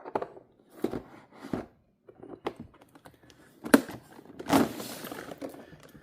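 Handling noise from a plastic collector case of die-cast toy cars: a series of separate light clicks and knocks, followed by a longer rustle about four and a half seconds in.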